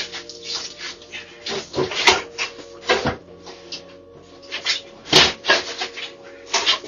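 A dog barking in short, harsh bursts at irregular intervals, the loudest about five seconds in, picked up by a doorbell camera's microphone over a steady low hum.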